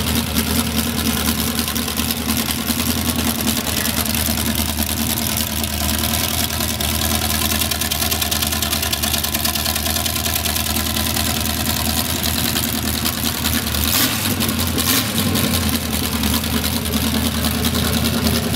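A 350 small-block Chevy V8 in a 1978 Sleekcraft Aristocrat boat, idling steadily on its first startup, exhaust coming straight out of fully jacketed Stellings headers. Two brief sharp sounds about a second apart come near the end.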